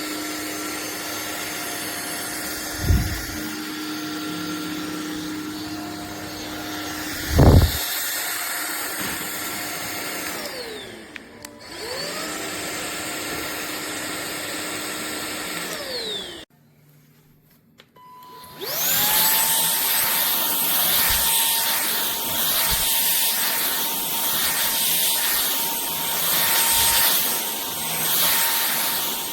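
Cordless stick vacuum motor running with a steady whine, with two dull thumps early on. About ten seconds in it winds down and spins back up. After a short silence it starts again, rising to a higher pitch and running louder and hissier to the end.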